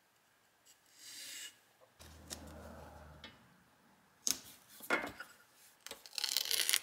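Quiet handling noises of double-sided tape being stuck onto a sheet-steel bracket and its plastic liner peeled off: soft rubbing and rustling, with a couple of sharp clicks about four and five seconds in.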